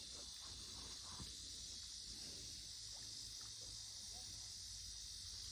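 Faint, steady, high-pitched chorus of insects with a low background rumble.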